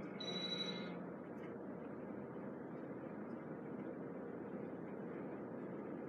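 Casablanca Artisan ceiling fan running on its highest speed: a steady whoosh of moving air with a faint steady motor hum. In about the first second a brief high-pitched electrical hum sounds, as this fan does when a control button is pressed.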